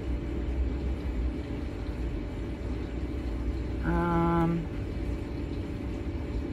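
Steady low background rumble, with one short, flat, buzzy tone lasting under a second about four seconds in.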